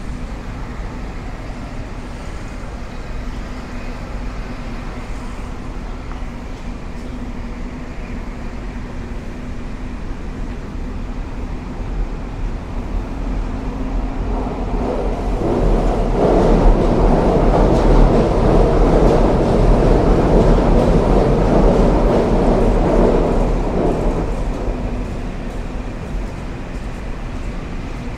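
Steady urban rumble, with a large vehicle passing close by: its noise swells from about halfway through, holds for several seconds and fades away near the end.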